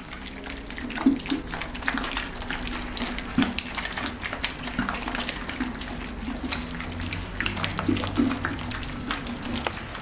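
A litter of puppies eating greedily from one shared bowl: a busy, irregular patter of wet lapping, slurping and smacking clicks, over a steady low hum.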